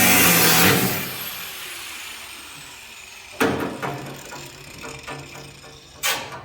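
Grinder with a cutting wheel running through sheet metal, switched off under a second in and winding down with a falling whine. A few sharp metal knocks follow, the loudest about three and a half seconds in.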